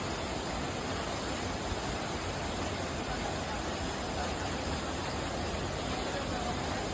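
Steady rushing of water, an even hiss-like roar with no breaks.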